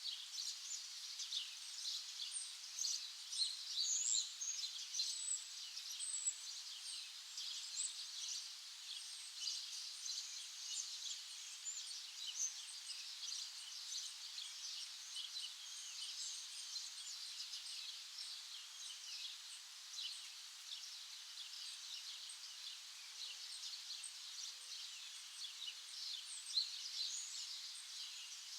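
Many small birds chirping and trilling together in a dense, continuous chorus of short, high notes.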